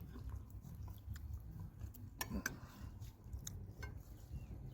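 A person chewing food, with a few faint sharp clicks, over a low steady hum.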